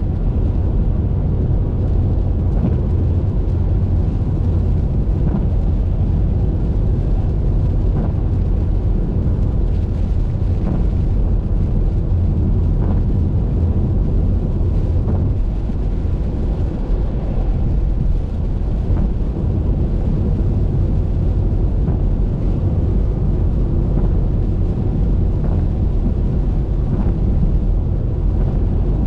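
Steady low rumble of a car driving at highway speed in the rain: tyre, road and wind noise, with a few faint ticks, which are likely raindrops hitting the windshield.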